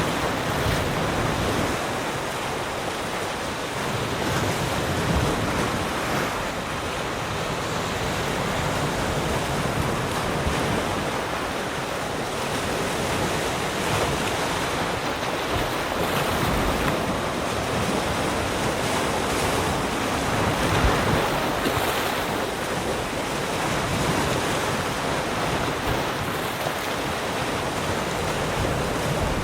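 Ocean waves breaking and washing on a shore, a steady rush of surf that swells and eases gently.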